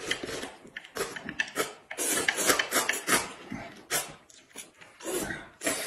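Eating sounds: noodles slurped up off chopsticks and food sucked and scooped from a tipped plate, in irregular wet bursts with chewing between.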